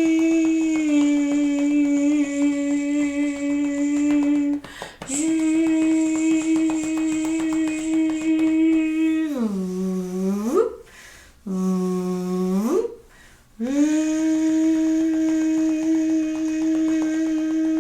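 A woman's voice humming long, steady held notes as wordless vocal play. Around the middle it swoops down to a low note and slides back up, twice.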